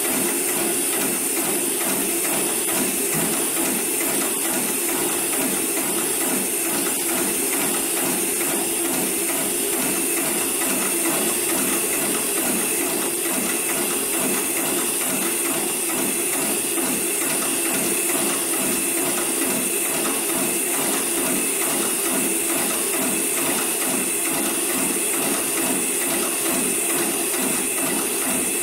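Industrial programmable rope-sewing machine (733PLC/R) running continuously, its needle stitching through a thick climbing rope to sew an eye termination. The stitching makes a rapid, even mechanical clatter at a steady level.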